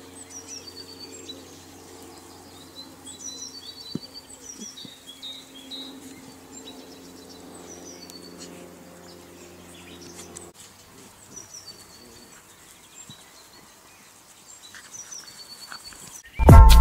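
Small birds chirping in short repeated calls over a low steady hum, which stops about two-thirds of the way through. Loud music starts right at the end.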